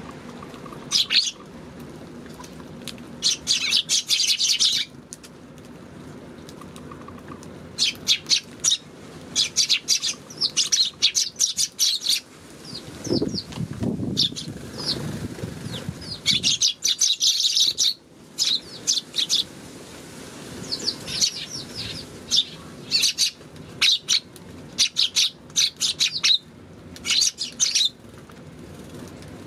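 A flock of Eurasian tree sparrows chirping in quick clusters of short, sharp chirps, on and off all through. A low rumble rises and fades midway under the chirps.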